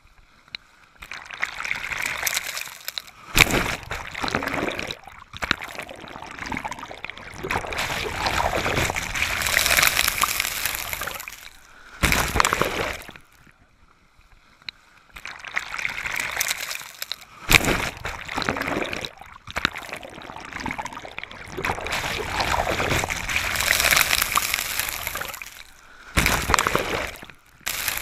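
Shallow ocean surf washing and sloshing close to the microphone, in surges that swell and fade every few seconds, with several sudden louder splashes.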